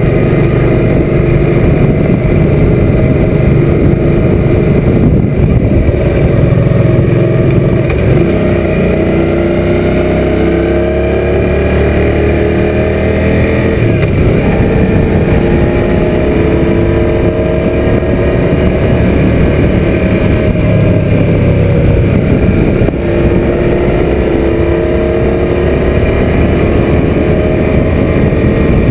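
Suzuki M800 V-twin motorcycle engine running under way, with steady wind noise on the microphone. The engine pitch climbs from about eight seconds in, then drops sharply about fourteen seconds in and holds fairly steady after.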